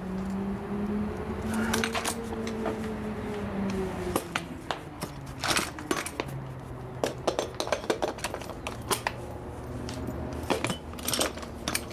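Scattered metallic clicks, taps and clanks of hand tools and tire-mounting gear being handled, over a steady low hum in the background.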